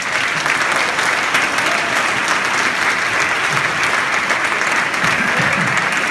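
Audience applauding: a hall full of people clapping steadily and loudly.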